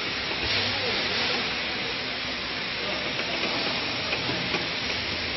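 CH10C tea bag packing machine running, giving a steady mechanical whirr and hiss with no distinct beats.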